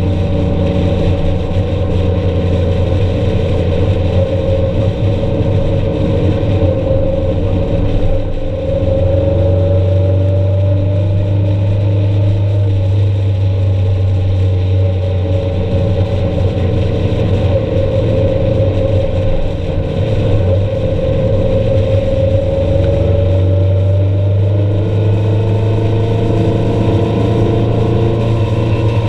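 A vehicle's engine running at road speed, its pitch drifting slowly up and down as the speed changes.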